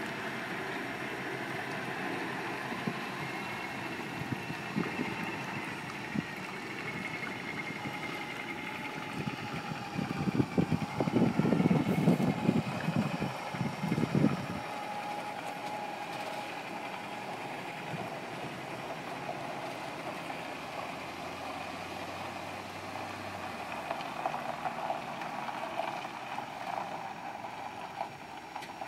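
Diesel semi-trucks towing flatbed trailers rolling slowly past one after another, engines running. The sound is loudest and heaviest for a few seconds about ten seconds in.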